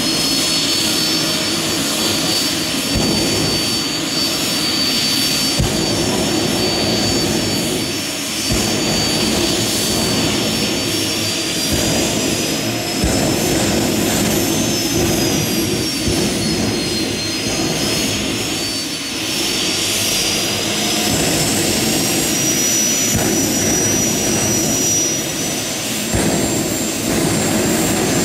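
Helicopter turbine engine fitted in a Plymouth Voyager minivan running, a steady jet roar with a high whine. The whine sags about two-thirds of the way through, then climbs higher toward the end as the turbine spools up.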